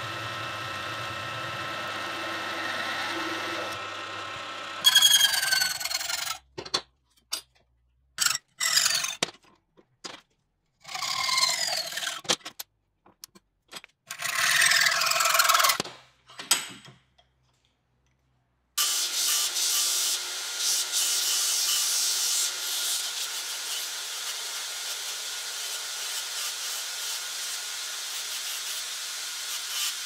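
A drill bit running through a thin mild-steel key blank for the first few seconds, then several short bursts of hand-tool strokes on the steel blank held in a bench vise. From about two-thirds of the way in, a belt sander grinds the edge of the steel key with a steady hiss.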